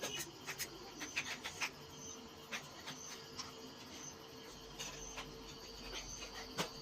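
Small scattered clicks and cracks of crab shell being broken apart and eaten, most frequent in the first two seconds.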